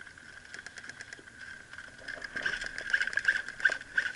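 Airsoft gunfire: sharp clicks and taps of shots and BB hits, growing busier and louder about two seconds in, over a steady high-pitched tone.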